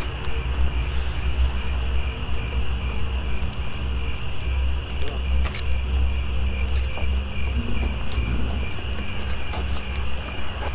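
Crickets chirping steadily at night, an even pulsing trill, over a steady low rumble.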